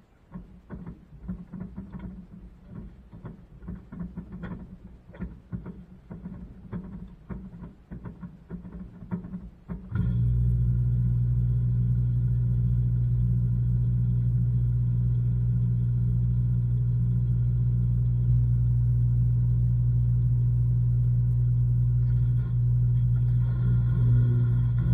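LG washing machine heard from inside its drum: irregular soft knocks and taps as the load moves, then about ten seconds in a loud, steady, low motor hum starts abruptly and runs on, with higher tones joining near the end.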